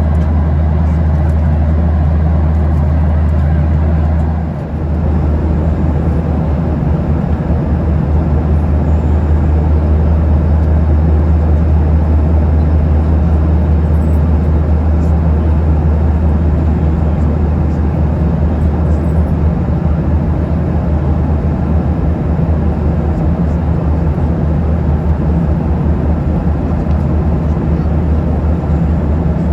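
Steady cabin noise of a Boeing 737-800 in cruise: the low drone of its CFM56-7B turbofans and the rush of air over the fuselage, heard from inside the cabin. The level dips briefly about four and a half seconds in.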